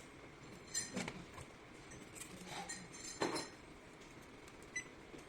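Electronic cabinet lock being worked with a card: a faint click with a short electronic beep about a second in, a couple of light knocks around three seconds in, and another brief beep near the end.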